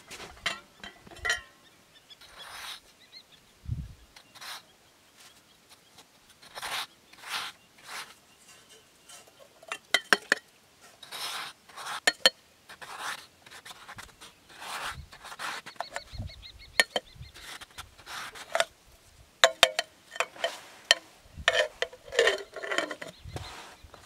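Snow crunching and scraping as a metal kettle is pushed and scooped through a snowbank to fill it, in many short, irregular scrapes, with boots crunching in the snow.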